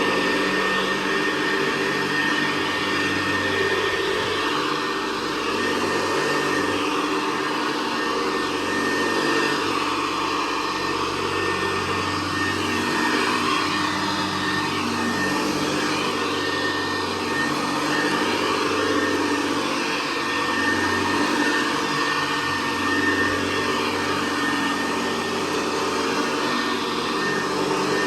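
Hoover Convertible Model 68 direct-air upright vacuum cleaner running steadily, with a steady high whine over its motor noise and its loudness rising and falling slightly.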